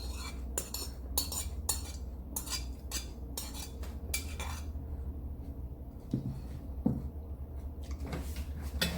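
Spoon and fork clinking and scraping against a plate while eating, a quick run of strokes in the first four seconds or so, then only a few softer knocks. A steady low hum sits underneath.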